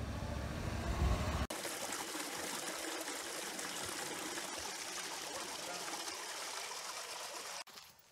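Small waterfall spilling down between boulders into a rocky pool: a steady rush of splashing water that starts abruptly about a second and a half in and cuts off just before the end. Before it comes a low rumble.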